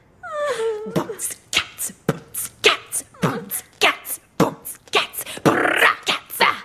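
Girls' voices beatboxing a steady beat of about three hits a second, opening with a short falling vocal slide.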